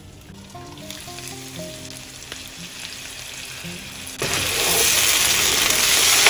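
Soft background music at first. About four seconds in, a loud sizzle starts suddenly: mutton pieces frying in a pan as they are stirred with a slotted spoon.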